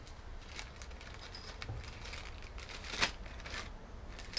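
Small metal engine parts and hand tools clinking and tapping against each other during disassembly: a few light clicks, a sharper knock about three seconds in, and a bright ringing metallic clink at the end.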